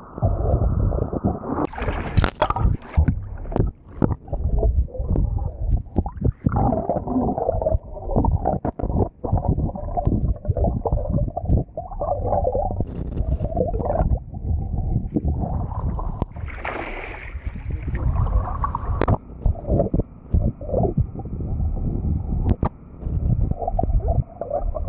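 Muffled rushing water picked up by a camera held underwater: a deep, uneven rumble with many brief knocks and clicks, brighter for a few seconds about two-thirds of the way through.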